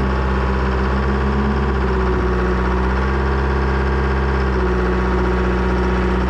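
Diesel engine of an old P&H excavator idling steadily, warming up just after starting.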